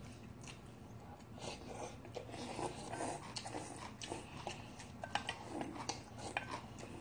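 Close-up eating sounds of bean sprout soup with rice: slurping of sprouts and broth, and scattered short clicks of chopsticks and spoons against stainless steel bowls.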